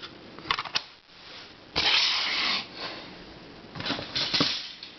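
Plastic puzzles being handled, picked up and put down: a few light clicks and knocks, with a louder scraping rustle lasting under a second about two seconds in.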